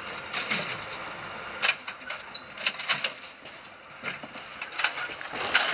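Wheeled ambulance stretcher being pushed across a metal gangway, its frame and wheels rattling with irregular sharp clicks and knocks.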